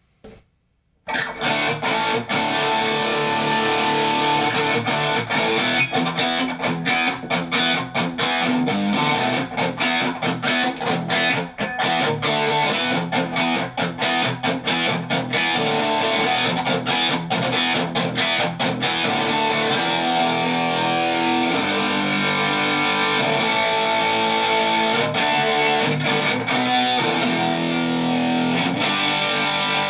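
Electric guitar played through a Tech 21 NYC XXL distortion pedal into a small 6-inch bench amp, starting about a second in. Choppy, rapidly cut chords for most of the first twenty seconds, then longer ringing chords. The pedal is passing a distorted signal again after its jacks and battery terminals were cleaned.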